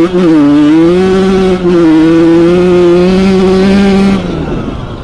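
Suzuki RM 80/85 two-stroke motocross bike engine at high revs under acceleration. The engine note dips briefly just after the start and again about a second and a half in, holds steady, then falls away about four seconds in as the throttle closes.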